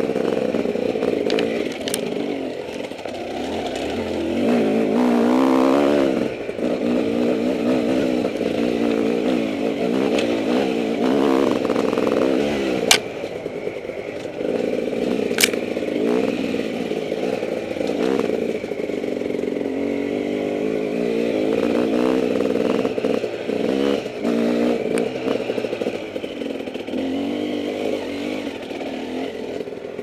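Dirt bike engine working a rough trail, its revs rising and falling over and over, with rattles from the bike and two sharp knocks around the middle.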